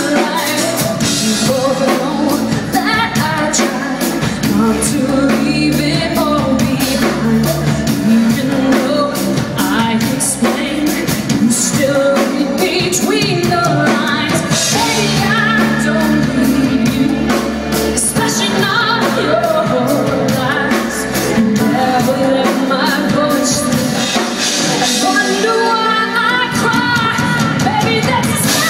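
Live pop music: a woman singing over a band with a steady beat.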